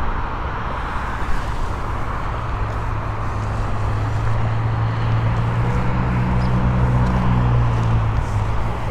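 Steady rumble of road traffic, with a low hum that grows a little stronger in the second half.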